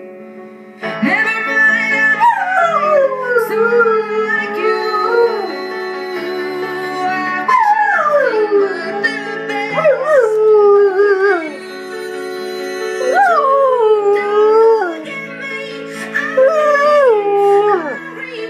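Alaskan malamute howling along to a slow song that is playing. Its long howls start high and slide down in pitch, wavering, about five of them with short breaks between.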